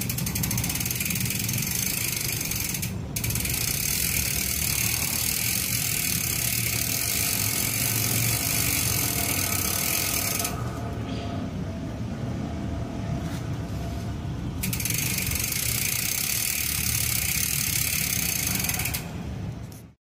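Ragusa XM500 rear hub freewheeling as the rear wheel spins, its freehub pawls clicking so fast they blend into a loud, steady buzz. The buzz breaks off briefly about three seconds in, and drops away for about four seconds past the middle before returning.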